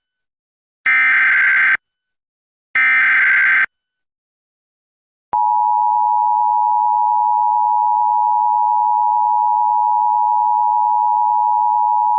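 Emergency Alert System header announcing a tornado warning. It begins with the tail of one burst of SAME digital data tones, then two more full screeching bursts of about a second each. After a short pause, a steady attention-signal tone starts about five seconds in and holds without change.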